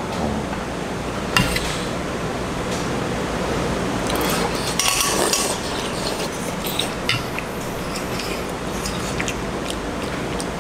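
Metal spoons and chopsticks clinking now and then against stainless-steel bowls during a meal, over steady room noise.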